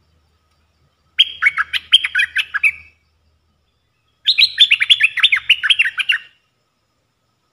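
Bulbul singing two bursts of quick, bubbling notes, the first about a second in and the second about four seconds in, each lasting about two seconds.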